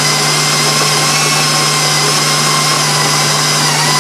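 KitchenAid Professional HD stand mixer running at a constant speed, its flat beater creaming butter and sugar in the steel bowl: a steady motor whine over a low hum.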